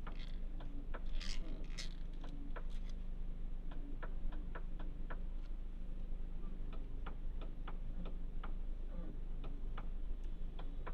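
Steering of a 2005 Chrysler PT Cruiser clicking as the wheel is turned: a string of sharp, irregular clicks over a steady low hum. The owner fears something is about to break.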